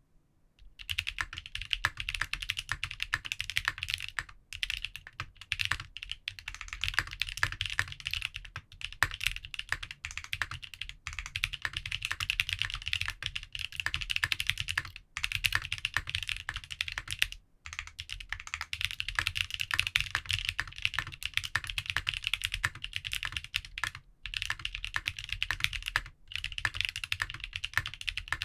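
Fast continuous typing on a custom Leaf 65 mechanical keyboard with lubed Salmon switches, a skeleton aluminium plate, lubed stabilizers and GMK keycaps: a dense run of keystroke clicks, broken by a few brief pauses.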